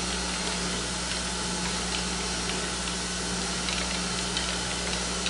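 Surface grinder running: the wheel spins with a steady hum and even hiss as the table carries the block under it on a very light spark-out pass, the last few sparks still coming off, with a few faint ticks.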